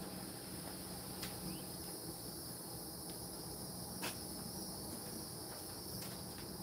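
Steady, high-pitched insect chorus, with a faint low hum beneath and a couple of faint clicks.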